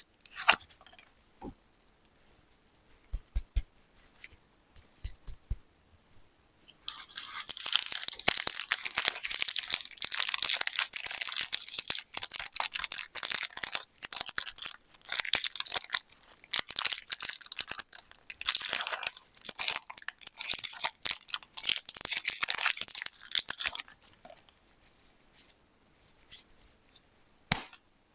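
Plastic candy wrappers being handled and torn open. Scattered light crinkles and taps come first, then dense crinkling and tearing from about seven seconds in, thinning to a few crinkles near the end.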